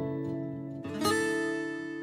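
Background music on plucked strings: a chord is struck about a second in and left to ring and fade.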